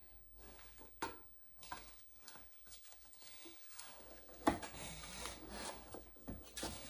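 A small picture frame and painting being handled and fitted together: soft rubbing and rustling broken by a few light knocks and taps, the loudest knock about four and a half seconds in.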